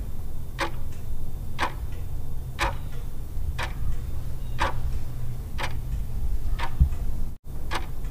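Ticking-clock countdown sound effect: a sharp tick about once a second over a low steady hum, with a brief dropout near the end.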